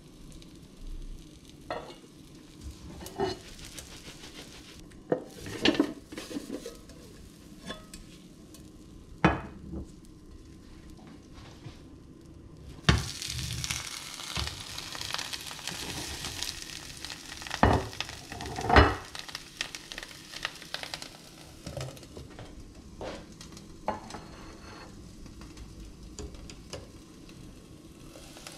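Cauliflower omelette frying in a pan, with scattered knocks and clinks of the lid, plate and pan. About halfway through the sizzling turns suddenly loud and hissy as the omelette goes back onto the hot pan turned over, with a few sharp knocks, then dies down again.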